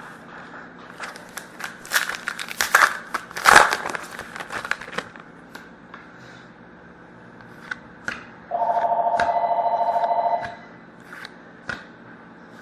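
Card pack wrapper being torn open and crinkled for a few seconds. About eight seconds in, a telephone rings once with an electronic warble lasting about two seconds.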